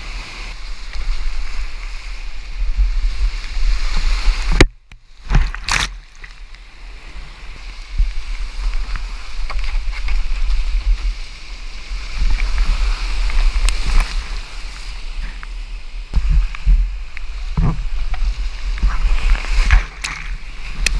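Whitewater rapids rushing and splashing around a kayak, heard close up from a camera on the boat, with a steady low rumble. About five seconds in the sound cuts out for half a second, followed by a couple of sharp knocks, and water splashes over the microphone again near the end.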